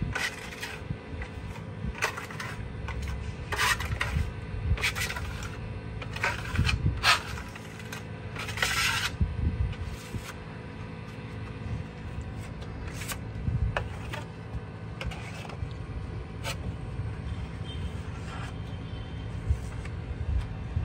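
Metal trowel scraping across a rough cement-plastered wall in irregular strokes, thickest in the first half and sparser later, over a steady low hum.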